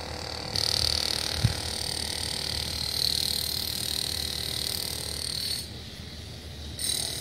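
A single dull thud about a second and a half in, a sledgehammer blow on brickwork heard from afar. Behind it runs a steady high-pitched animal chorus that stops for about a second near the end and then starts again.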